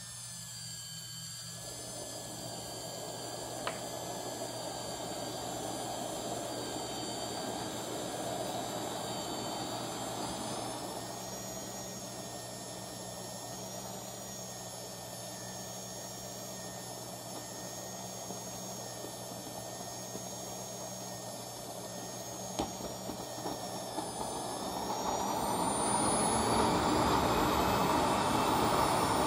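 KingTech K45G4+ model jet turbine starting up in the airframe: a steady high whine, joined about a second and a half in by a hissing burn. From about 24 seconds in the whine rises and the sound grows steadily louder as the turbine spools up.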